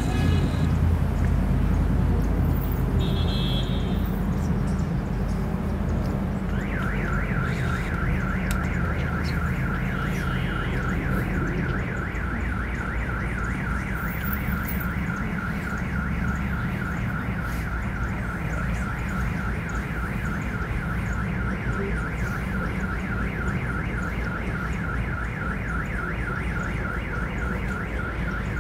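A car alarm sounding a fast, evenly repeating electronic warble that starts abruptly about six seconds in and keeps going without a break, over a steady low rumble of wind and distant traffic.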